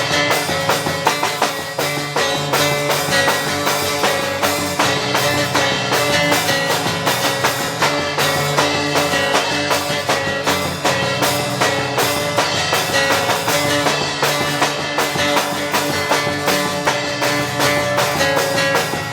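Pop-punk band playing an instrumental passage in an acoustic arrangement: guitars strummed over a steady drum-kit beat, with no singing.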